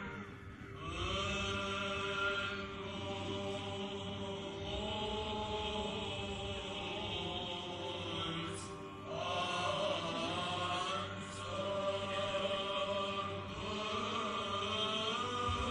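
Orthodox liturgical chanting in long held notes that slide from pitch to pitch. There are short breaks between phrases about half a second in and again around nine seconds in.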